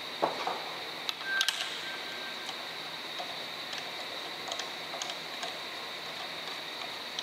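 Small metallic clicks and taps as a washer and nut are set onto the crankshaft end at the centre of a jet-ski engine's flywheel and started by hand. The loudest taps come in the first second and a half, one with a short metallic ring, followed by lighter ticks, over a steady high-pitched background tone.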